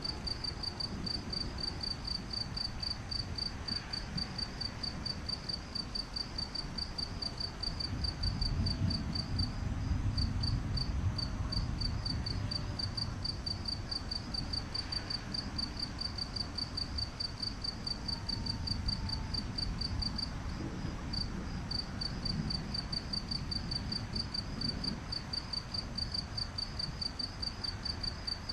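A cricket chirping in a steady, even rhythm of short high chirps, about three a second, with brief breaks twice. Beneath it a low rumbling noise swells for a few seconds near the middle.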